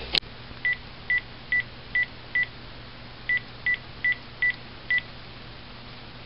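Phone keypad beeping as a number is dialled: ten short beeps of the same pitch, five, then a brief pause, then five more.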